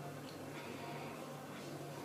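Quiet room tone: a steady low hum with a few faint, soft scuffs.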